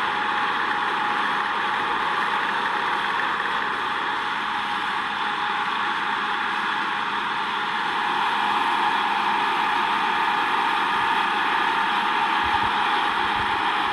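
Combine harvester running steadily, a continuous even machine noise with no changes in pitch or strokes.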